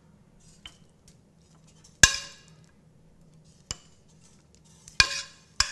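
A metal spoon clinking and scraping against clam shells on a foil-lined baking sheet as filling is spooned in: a handful of sharp clinks, the loudest about two seconds in and two more close together near the end.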